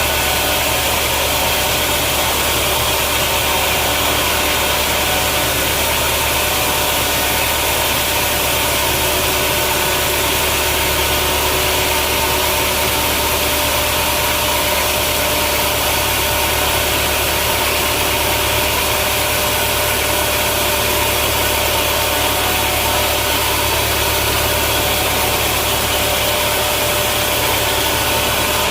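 Sawmill machinery running steadily: an even, loud mechanical drone with a strong low hum and hiss that does not change.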